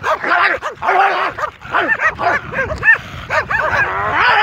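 Several stray dogs barking repeatedly and aggressively at a person close by, their short barks overlapping, with a longer drawn-out yelping call near the end.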